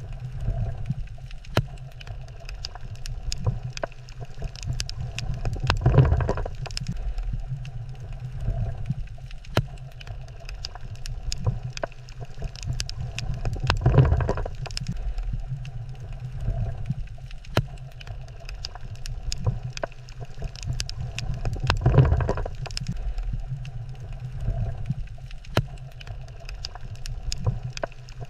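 Underwater ambience over a coral reef: a steady low rumble scattered with sharp clicks, swelling louder about every eight seconds.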